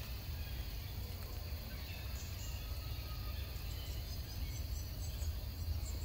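Outdoor forest ambience: a steady high insect drone over a low rumble, with a few faint short chirps.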